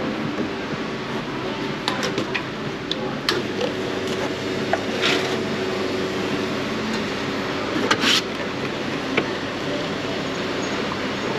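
Steady hum of a commercial espresso machine with the clicks and knocks of a portafilter being dosed at the grinder and locked into the group head, and two short bursts of hiss about five and eight seconds in.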